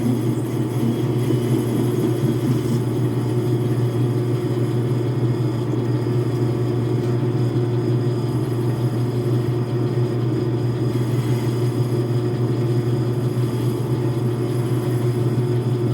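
Logan metal lathe running steadily at low spindle speed, a constant motor hum with no change in pitch, during an attempt at a parting-off cut.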